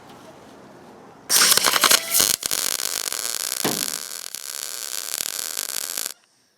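MIG wire-feed welder arc crackling for about five seconds as it fills a bolt hole in a sheet-metal hood backed by a ceramic pad. It starts a little over a second in and cuts off suddenly. The wire feed is probably set too high, laying on more weld than wanted.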